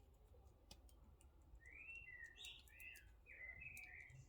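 Faint bird chirping in the background, a quick run of short gliding notes over the second half, with a few faint small clicks scattered through an otherwise near-silent room.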